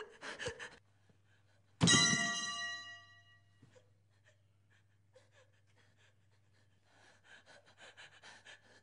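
A boy's ragged, gasping breaths, cut by a sudden loud hit about two seconds in that rings out with several tones and fades over a second or so. Softer breathing returns near the end over a faint low hum.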